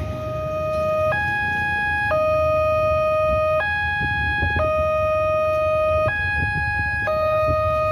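Railway level crossing's electronic warning alarm sounding, stepping back and forth between a lower and a higher tone about every second, over a low rumble.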